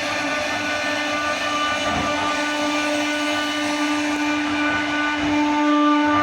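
CNC router spindle running steadily: a whine of several steady tones over a hiss, growing a little louder near the end.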